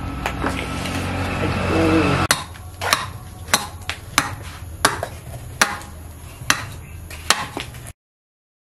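A hatchet chopping a block of wood held on a stump: about eight sharp blows, a little under a second apart, starting about two seconds in after a steady noise that grows louder. The sound cuts off suddenly near the end.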